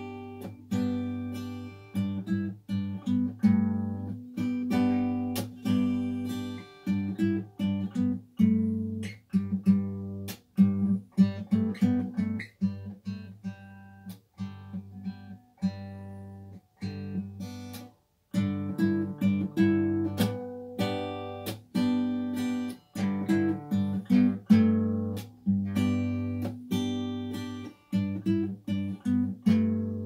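Solo acoustic guitar played by hand: plucked notes and chords ring out and decay, with a brief break a little over halfway through.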